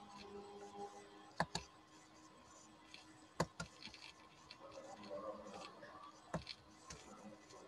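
A few sharp clicks at a computer: a quick pair about a second and a half in, another pair about three and a half seconds in, and one or two more near the end, over a faint steady room hum.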